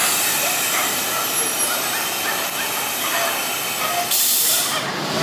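Garbage truck running at the curb, a steady mechanical drone, with a short sharp air-brake hiss about four seconds in.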